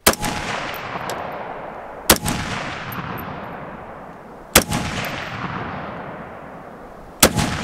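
Ruger SFAR .308 semi-automatic rifle with a two-port muzzle brake fired four times, a shot every two to two and a half seconds. Each report is followed by a long echoing tail that dies away slowly.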